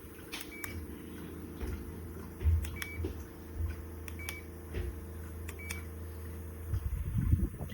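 Small rechargeable camping fan running with a steady low motor hum, and its controls beeping four times, each short beep with a click.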